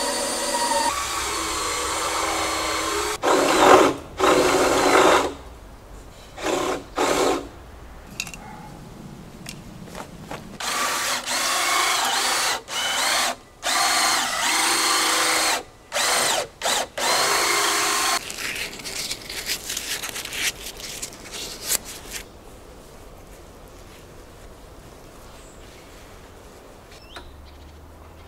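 Power drill working into the timber beams of the frame, running in repeated bursts of a few seconds with its whine rising and falling in pitch, then a few light clicks and quiet for the last several seconds.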